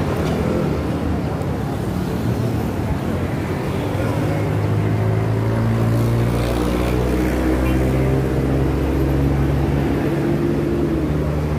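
Road traffic: a vehicle engine running close by with a steady low drone, loudest from about four seconds in until near the end.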